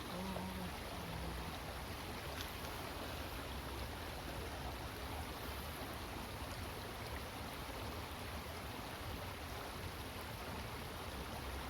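Steady rushing of flowing water, an even noise with a low rumble beneath it.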